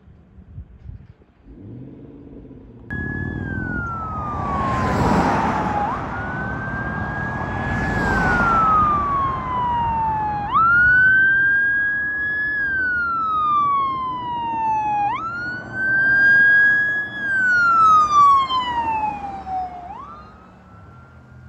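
Ambulance siren on a wail setting, each cycle jumping up quickly and then falling slowly over about four seconds, four cycles in all, as the rescue ambulance approaches and passes. Two loud rushes of noise come about four and seven seconds in, and the wail ends with a short steady tone near the end.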